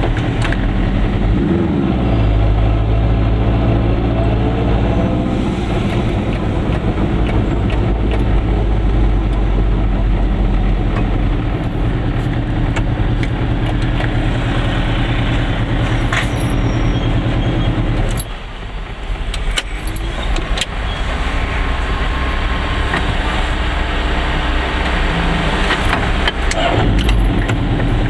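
Goggomobil microcar's two-stroke engine running steadily while driving, with its pitch gliding near the start and again near the end, and a brief drop in level about eighteen seconds in.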